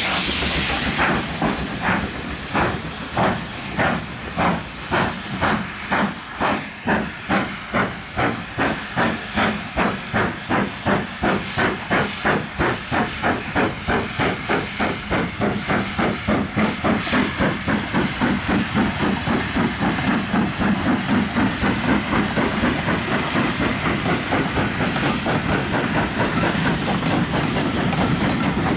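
Steam locomotive pulling away: a hiss of steam at the start, then chuffing exhaust beats. The beats quicken steadily from about two a second to a near-continuous rush as it gathers speed.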